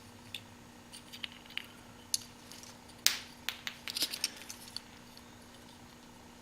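Scattered light clicks and rattles of crushed LED headlight bulb fragments being handled, small metal, plastic and glass pieces knocking together, with a quick run of clicks around three to four seconds in.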